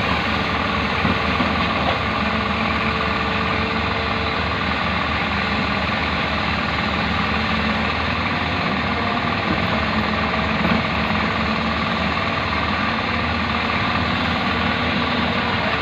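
Backhoe's diesel engine running steadily at an even speed.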